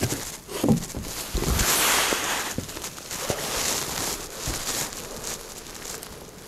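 Footsteps crunching and rustling through dry fill and old paper debris on a wooden attic floor, with scattered small cracks and crinkles.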